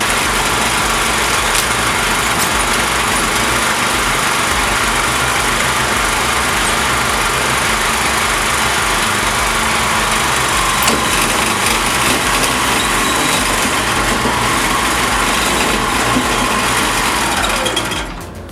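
Large wood chipper running steadily at full speed, its engine and cutters making a loud, even noise, while a piece of wood spins at the cone without being drawn in.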